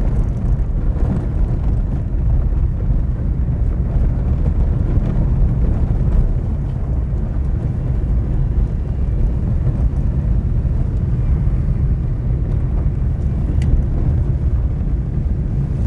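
A car driving steadily, with a continuous low rumble of engine and road noise.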